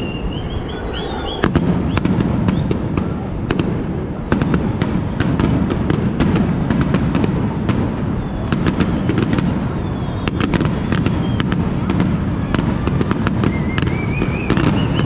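Aerial fireworks display: dense rapid crackling over a continuous low rumble of bursts, with a wavering rising whistle near the end.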